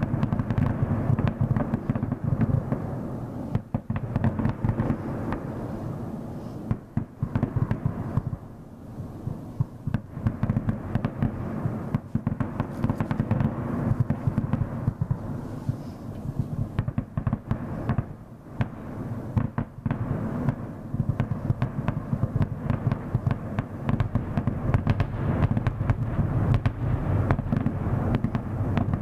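Fireworks going off in a dense, steady run of bangs and crackles, with a few brief lulls.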